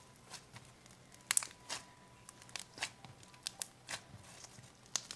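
Fluffy slime being squeezed and kneaded by hand, giving irregular small crackles and pops as trapped air bubbles burst, with a sharper pair of pops about a second in.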